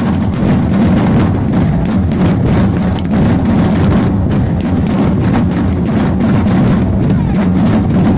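Loud festive street-procession music with drums beating throughout.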